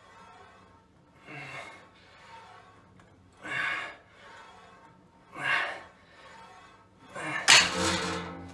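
A man breathing hard through reps of cable triceps pushdowns: a sharp exhale about every two seconds with softer breaths between. The loudest exhale, partly voiced, comes near the end.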